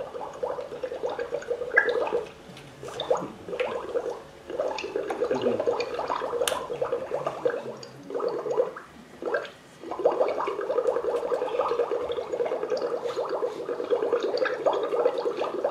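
Liquid bubbling and gurgling, broken by a few short pauses.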